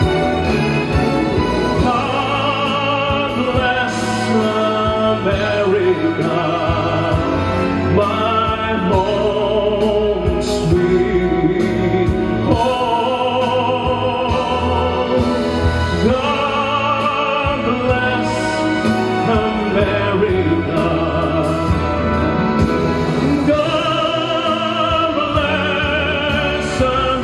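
A song: a man singing a sustained melody with strong vibrato over instrumental backing music.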